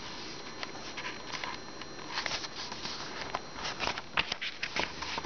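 Paper pages of a hardcover picture book being turned by hand: a string of soft rustles and light clicks, busiest about two seconds in and again over the last couple of seconds.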